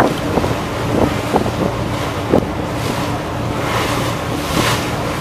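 Wind buffeting the microphone on the deck of an ОМ-type river motor ship, over the steady low drone of its engine and the rush of choppy water. The wind swells in brief gusts.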